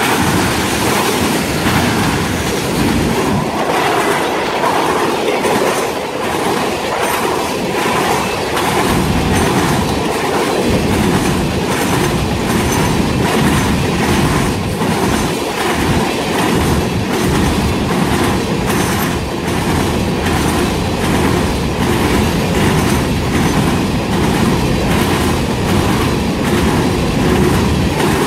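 Freight train cars, first tank cars and then open-top hopper cars, rolling past close by. Their steel wheels on the rail make a steady loud rumble, with an even clickety-clack of wheels crossing rail joints at about one to two a second.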